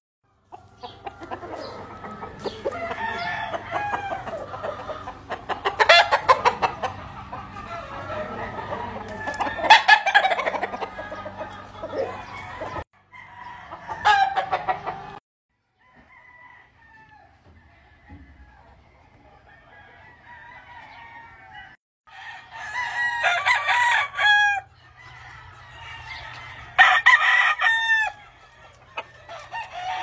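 Gamefowl roosters crowing and hens clucking, with dense overlapping calls in the first part. The sound cuts off abruptly a few times. Two loud crows come in the last third.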